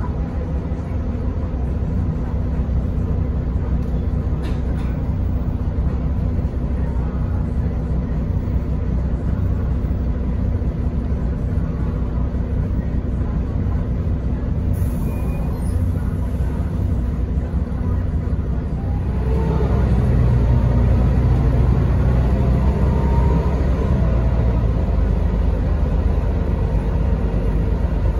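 Mercedes-Benz O405NH bus heard from inside the passenger saloon: steady low engine and road rumble. About two-thirds of the way through it grows louder, with faint rising whines, as the bus gets under way.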